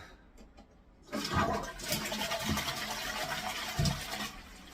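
Toilet flushing: water rushes from the cistern into the bowl for about three seconds, starting about a second in and dying away near the end, released by a newly fitted dual push-button flush valve. A few low knocks sound during the flush.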